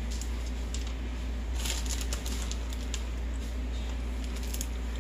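Shredded carrots being broken up by hand and dropped into a frying pan of peas: light, scattered ticks and rustles, a small flurry of them about a second and a half in, over a steady low hum.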